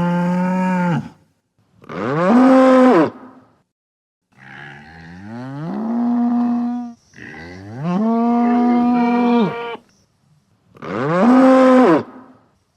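Bull mooing: the end of one long moo, then four more, each sliding up in pitch at the start and then held, with short pauses between them.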